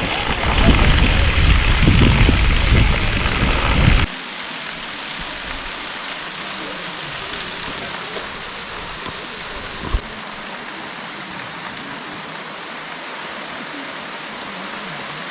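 Waterfall water rushing steadily. The first few seconds are louder with a deep rumble, then an abrupt cut to a quieter, even rush of falling water. A brief click sounds about ten seconds in.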